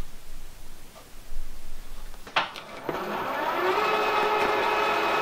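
Milling machine switched on with a click a little past two seconds in, then its spindle motor spinning up with a rising whine and settling into a steady run.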